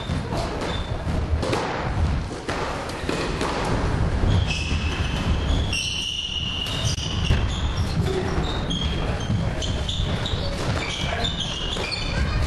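Football kicked and bouncing off the walls and wooden floor of a squash court, a run of sharp thuds, with sneakers squeaking on the wooden floor from about four seconds in. Everything echoes in the enclosed court.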